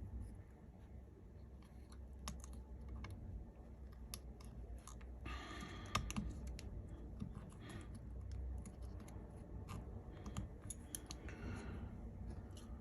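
Scattered light clicks and taps of small smartphone parts and tools being handled during reassembly, with two short scraping rustles, one about five seconds in and one near the end.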